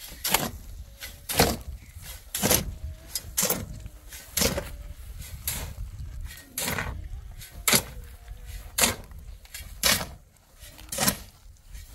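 A shovel scraping into crushed stone on a pickup truck's bed and tossing it onto a pile, one sharp scrape about every second.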